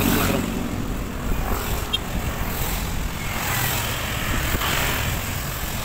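Steady ride-along vehicle noise: an engine running with wind and road rumble while moving along a wet road.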